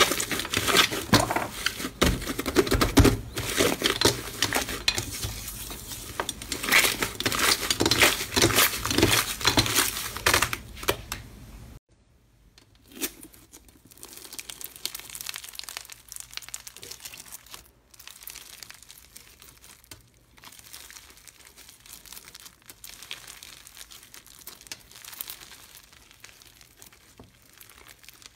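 Hands kneading and squeezing orange slime in a glass dish make a dense run of loud crackling and crinkling. About twelve seconds in it cuts to a ball of blue crunchy bead slime being pressed and pulled apart, with quieter, sparser crackles.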